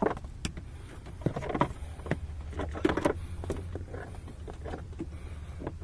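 Handling noise from solar panel cables being pulled and positioned by hand: irregular knocks, clicks and rubbing, a few louder ones near the start and around the middle, over a steady low hum.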